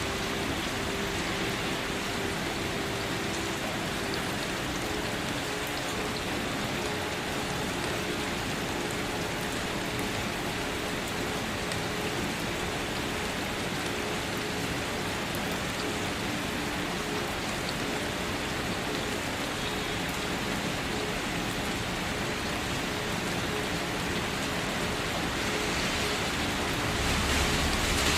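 Steady rain falling, an even hiss of drops, growing louder in the last couple of seconds.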